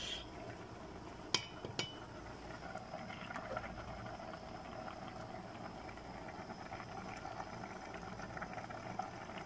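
Two light clinks about a second and a half in, a wooden spoon knocking on the rim of an aluminium pot. Then the pot of soup simmers faintly and steadily on a gas burner.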